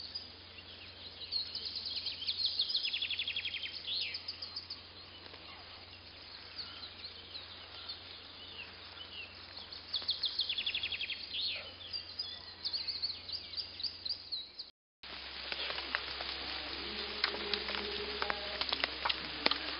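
Songbirds chirping and trilling over a steady low hum for most of the clip. After a brief dropout near the end, there is a run of rustling and short clicks, like people walking through undergrowth.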